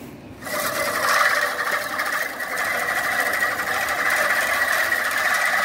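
Sharpex 16 MN manual push reel mower's cutting reel spinning past the bed knife, a steady whirr that starts about half a second in.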